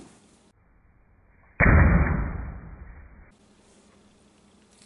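A balloon pop dying away, then about a second and a half in a loud, muffled bang with a long fading rumble that lasts about a second and a half.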